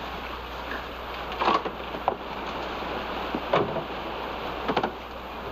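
Wind and water noise around a boat, with a few short knocks at irregular intervals, two of them close together near the end.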